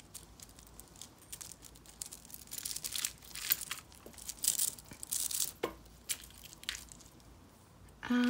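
A tangled bundle of beaded necklaces and metal chain being pulled apart by hand: irregular rustling with small clicks of beads and chain links knocking together, busiest in the middle.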